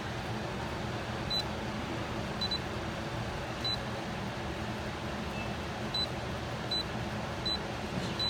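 Several short, high electronic beeps at irregular intervals, over a steady machine hum.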